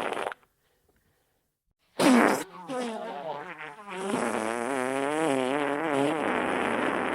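Wet fart sound effects. One ends just after the start, and after about a second and a half of silence a loud wet blast opens a sputtering fart. The sputter runs into a long fart with a wavering pitch.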